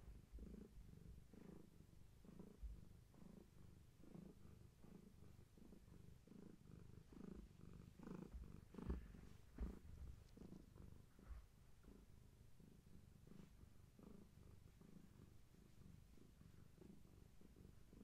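Domestic long-haired tabby cat purring faintly in a steady, even pulse. Two soft thumps come about halfway through.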